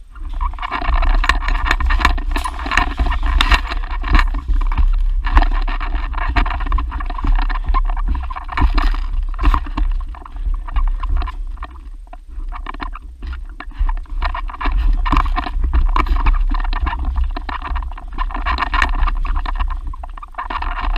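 Footsteps crunching and scraping over debris-strewn floors, with irregular clicks and rustling of gear close to a head-mounted camera, over a constant low rumble of handling noise.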